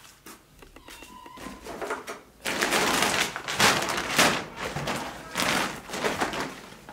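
Blue IKEA plastic shopping bag being crumpled and folded by hand, rustling and crinkling loudly for about four seconds, starting a couple of seconds in.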